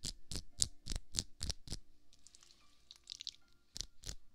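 Aloe vera gel squelching between hands worked close to the microphone: quick wet taps about four a second, then softer sticky crackling, and two more taps near the end.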